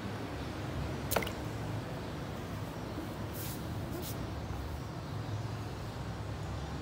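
Light splashing of water in a plastic tub, over a steady low hum, with one sharp click about a second in.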